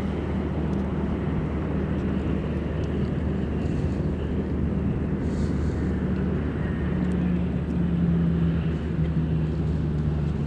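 Steady low engine drone with a hum whose pitch shifts slightly past the middle, swelling a little louder near the end.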